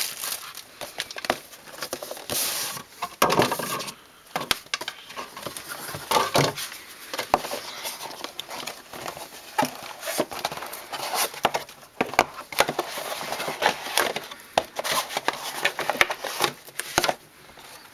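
Crinkling and clicking of a trading-card box and its wrappers being opened and handled, with frequent small sharp clicks and rustles of packaging and cards.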